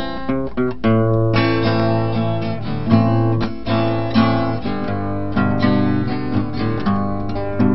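Background music: acoustic guitar playing, with plucked and strummed chords over a bass line.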